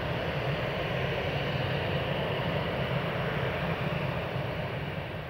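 Boeing 747-400 jet airliner's four turbofan engines running with a steady deep rumble as the aircraft rolls out along the runway after touchdown, easing slightly near the end.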